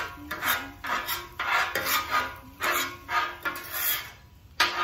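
Metal spatula scraping across a hot griddle in repeated strokes, about two a second, with a short pause near the end.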